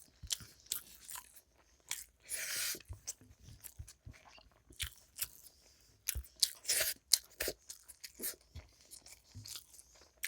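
A person chewing and crunching food close to the microphone in irregular bites, with two longer crunchy bursts about two and a half seconds and seven seconds in.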